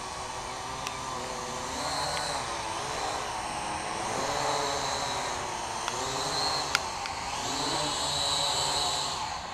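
Syma X8W quadcopter's four motors and propellers buzzing in flight, their pitch rising and falling about once a second as the throttle is worked while it is brought down toward a landing.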